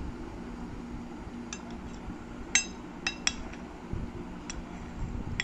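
Steel spoon clinking against a ceramic plate as star anise is tipped onto it: a handful of sharp clinks, the loudest about two and a half seconds in, each ringing briefly.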